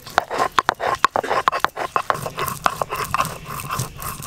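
Stone roller (nora) rubbed back and forth on a flat grinding stone (shil), grinding cashew nuts and garam masala to a wet paste: a quick run of gritty scrapes and clicks of stone on stone.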